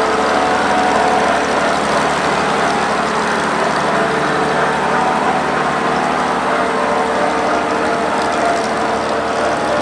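A 93 hp Oliver 430 combine running steadily while harvesting wheat: engine and threshing machinery give an even drone with a constant whine in it.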